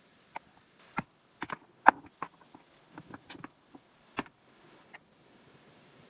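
Loose stones knocking and clacking together as they are moved by hand among dry debris: a string of irregular sharp knocks, the loudest about two seconds in.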